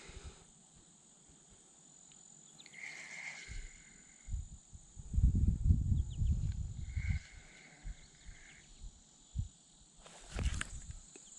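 Insects droning steadily at one high pitch. About five seconds in comes a short burst of low rumbling, the loudest sound here.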